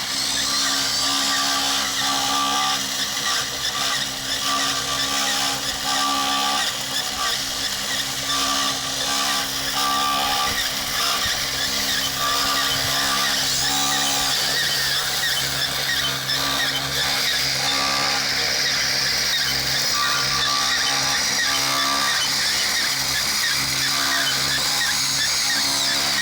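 Radio-controlled scale construction machines at work: the steady whine of their electric drive motors and gearboxes, with a short tone that repeats about every second and a half through most of the stretch.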